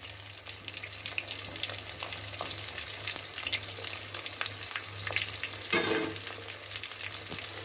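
Stuffed bitter gourds, tied with white thread, deep-frying in hot oil in a kadai: a steady crackling sizzle of bubbling oil, with one brief louder crackle about six seconds in.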